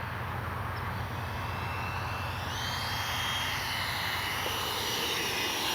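Electric ducted-fan RC jet with an 80 mm 12-blade fan, its whine growing steadily louder as it comes in on approach. A thin high fan tone comes in about two seconds in and shifts in pitch.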